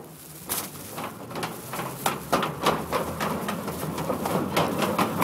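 Scooter rolling fast down a ramp: its small wheels make a continuous rolling rumble with a rapid, irregular run of clicks and clacks, which grows busier after the first half second.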